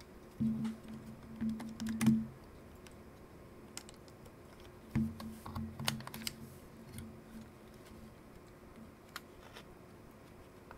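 Plastic camera body being handled: clicks, taps and rubbing of plastic parts as a grip panel is pressed into place, in two bouts about half a second and about five seconds in, with a few single sharp clicks later.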